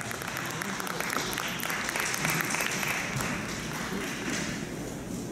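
Audience applauding, the clapping thickest midway and thinning out toward the end.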